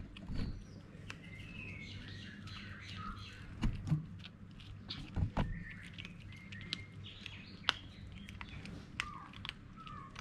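A kitten and an adult cat crunching dry kibble, a run of short sharp clicks, with a few louder knocks. Small birds chirp in the background throughout.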